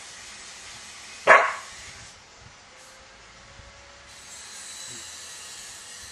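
A border collie barks once, a single short bark about a second in, over a steady background hiss.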